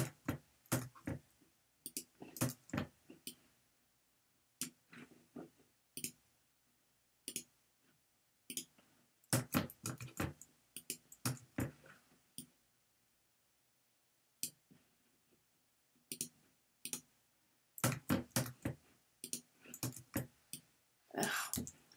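Computer mouse clicks and keyboard keystrokes, sharp and short, coming in quick scattered runs with silent pauses between them.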